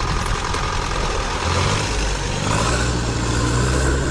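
Humvee diesel engine running as it fords a river deep enough to cover the hood, over a steady rush of water noise. The engine's low hum comes up stronger about a second and a half in.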